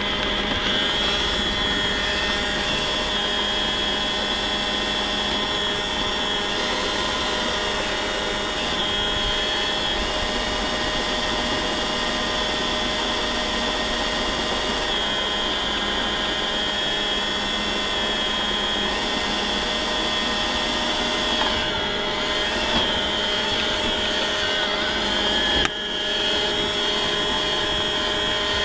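iRobot Roomba robot vacuum running, heard from a camera mounted on it: a steady whirr of its vacuum and brush motors with a high-pitched whine. Near the end there is one short knock.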